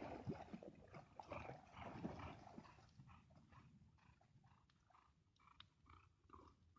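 Near silence: faint rustling and soft clicks that die down about three seconds in, leaving only a few faint short sounds.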